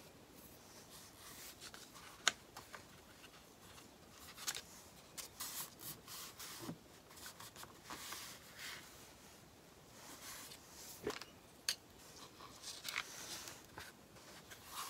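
Faint rustling and rubbing as Mod Podge is spread over paper on a wood shingle, with a few sharp clicks and taps.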